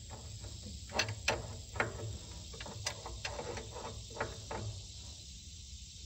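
Adjustable wrench working the bolt on an engine's oil filter housing cover, a string of irregular metallic clicks and taps as the cover is snugged down onto a new cork gasket, over a steady high hiss.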